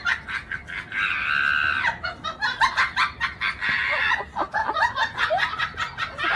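A woman screaming shrilly for about a second, then a run of short high cries and laughter as she tumbles off a chair.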